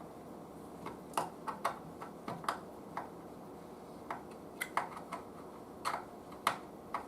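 Screws being tightened down with a hand tool: an irregular scatter of sharp clicks and ticks, starting about a second in.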